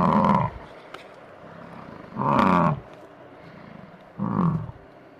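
Highland cow mooing in three short calls about two seconds apart, the last one shorter and quieter.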